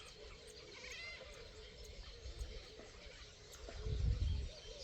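Birds calling, a steady run of short repeated chirps with a higher call about a second in. A low rumble swells around four seconds in and is the loudest thing heard.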